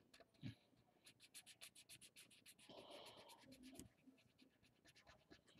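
Very faint scratching of a marker tip on paper, many quick back-and-forth strokes as a small circle is colored in.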